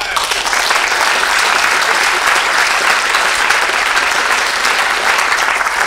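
Audience applauding: dense, steady clapping from many hands that breaks out all at once.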